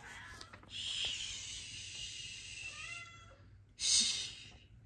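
A cat meowing: one long, breathy meow whose pitch wavers toward its end, then a brief louder, hissy sound about four seconds in.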